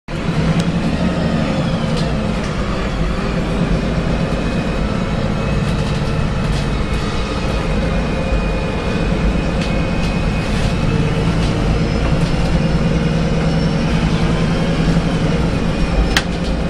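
Interior of a VDL SB200 single-deck bus under way: steady engine and drivetrain running with a faint whine, and interior fittings rattling and clicking. A sharp click sounds near the end.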